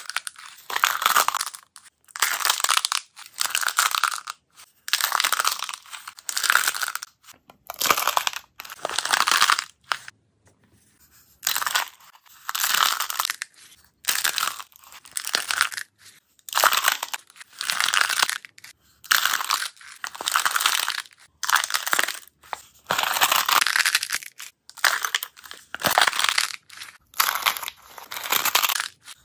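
Brittle dried slime flakes crunching and crackling as a paper cup full of them is squeezed and crushed by hand, over and over at about one squeeze a second, with a brief pause about ten seconds in.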